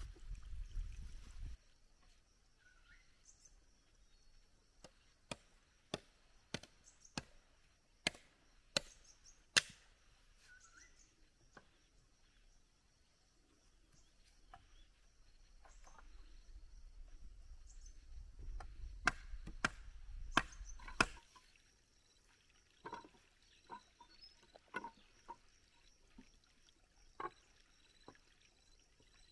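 Machete chopping bamboo: a run of about eight sharp blows, roughly 0.7 s apart, a few seconds in, another short run of about four blows later, then softer, scattered knocks near the end.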